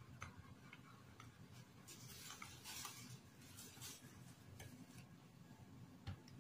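Metal spoon stirring flour into a wet cookie dough mixture in a bowl: faint, irregular clicks as the spoon knocks the bowl, with a few soft scrapes.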